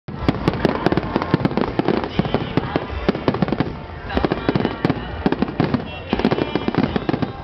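Fireworks display firing a rapid salvo of aerial shells: a dense run of sharp bangs and bursts, many a second without pause, easing slightly a little before halfway and building again about four seconds in.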